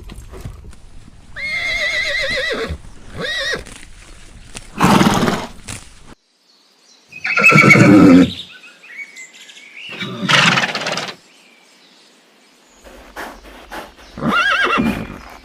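Horses whinnying: about six separate neighs, several with a wavering, quavering pitch, the loudest near the middle.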